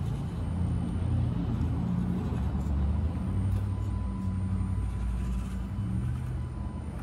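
Axial SCX24 RC crawler's PN Racing 90-turn 130 brushed motor and drivetrain whirring as the truck crawls slowly up rocks, over a steady low rumble.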